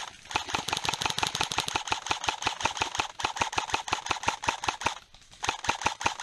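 Airsoft rifle firing on full auto: long runs of rapid, evenly spaced sharp clicks, with a brief pause about five seconds in before firing resumes.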